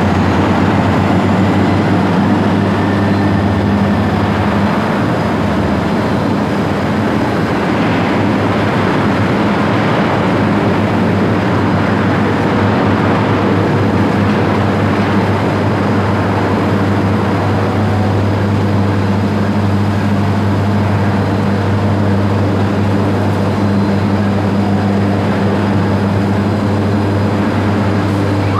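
Heavy industrial machinery running: a steady, loud low hum over a continuous rushing noise, unchanging throughout.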